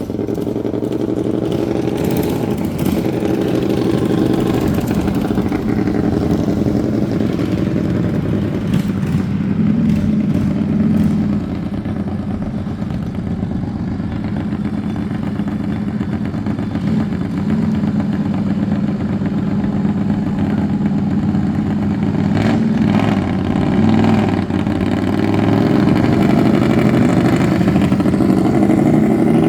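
Racing lawn mower engines running and revving, their pitch rising and falling; louder over the last few seconds.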